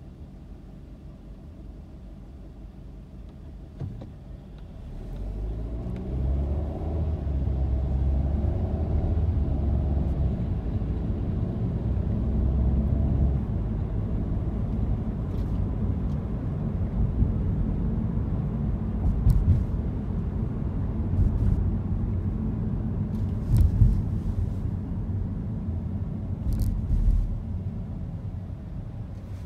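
Car pulling away from a standstill: engine note and low road rumble rise as it accelerates about five seconds in, then settle into a steady cruising rumble, with a few short thumps over the road and the rumble easing off near the end.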